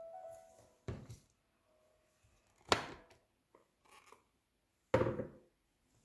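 Plastic lid of a small electric food processor being unlocked, lifted off and set down: three hard plastic clunks, about a second, nearly three and five seconds in, the last two the loudest. A faint tone dies away in the first half second as the motor stops.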